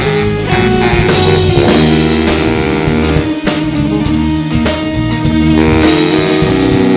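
A live rock band playing an instrumental passage: electric guitar and bass holding chords over a steady drum-kit beat.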